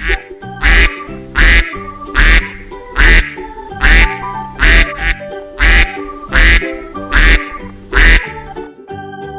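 Duck quacking about ten times at an even beat, each quack with a low thump, over background music.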